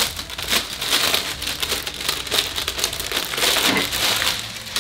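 Clear plastic garment bag crinkling steadily as it is handled and pulled open to get a shirt out.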